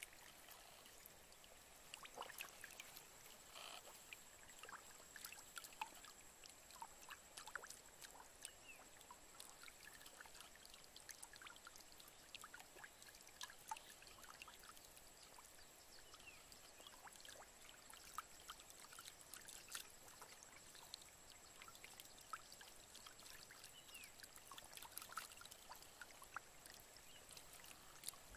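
Faint trickling and small, irregular splashes of shallow, muddy water as fish stir in it, over a thin, steady high tone.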